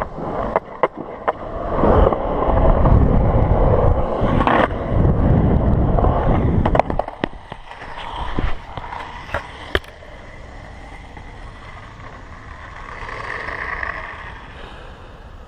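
Skateboard wheels rolling on a concrete skatepark, loudest for the first several seconds, with sharp clacks of the board. Between about seven and ten seconds in come a few sharp knocks, then a quieter steady noise.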